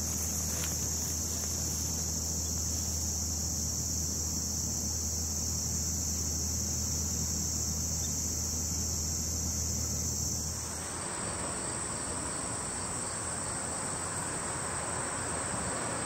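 Insects trilling in a steady, unbroken high-pitched drone, with a low hum underneath. About eleven seconds in, the hum stops and a wider hiss joins the trill.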